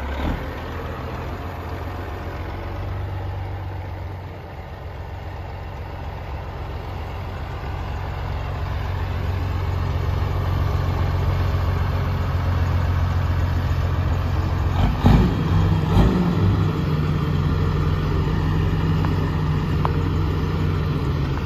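A Peterbilt 379 semi truck's diesel engine running steadily as the rig manoeuvres. Two sharp knocks come about two-thirds of the way through, and a slightly higher steady engine note then holds to the end.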